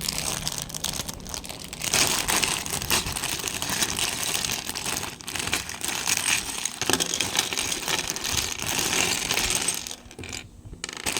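Small plastic Lego pieces clattering and clinking while plastic parts bags crinkle as they are handled, with a brief lull about ten seconds in.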